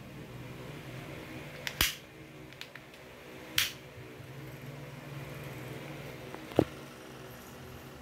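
Handling noises from a rotary hammer and its hard plastic carry case: a few separate sharp clicks and short scrapes. The loudest is a sharp click about two-thirds of the way through. A steady low hum runs underneath.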